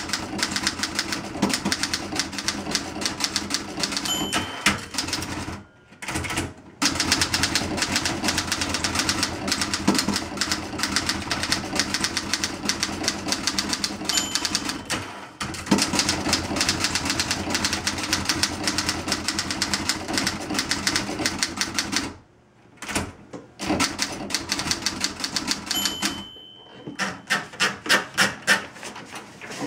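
Fast, steady typing on a 1960 Olympia SG-1 standard manual typewriter: type bars striking the platen in quick succession, with a short bell ring at the end of a line three times, about 4, 14 and 26 seconds in. Near the end the typing stops and the sheet is wound out by the platen knob in a run of evenly spaced ratchet clicks.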